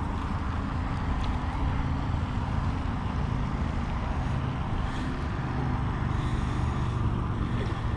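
A steady low rumble with a fainter hiss above it and a few faint ticks, with no clear single event.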